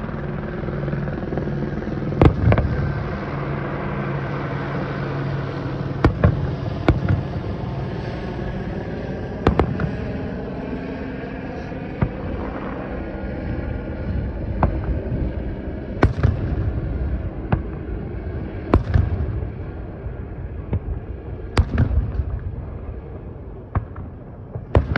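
Aerial fireworks shells bursting in the distance: a dozen or so sharp booms at irregular intervals over a steady low rumble.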